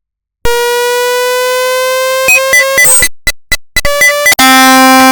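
Synthesizer music. After a brief silence comes a long held note that drifts slightly upward, then a quick run of short notes broken by brief gaps, and near the end a loud, lower held note.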